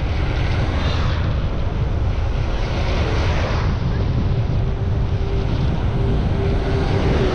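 Wind buffeting the microphone as the bicycle coasts fast downhill: a loud, steady low rumble.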